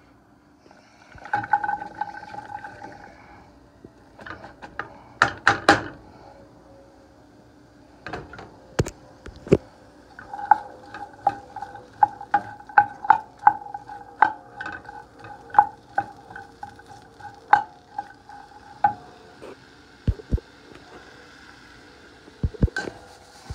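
Wooden spatula stirring food in a frying pan, with repeated knocks and scrapes against the pan and a faint sizzle. A steady tone comes and goes with the stirring.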